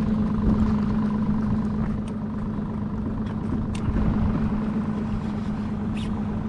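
A boat motor running steadily with a low, even hum, with a few faint light ticks about two, four and six seconds in.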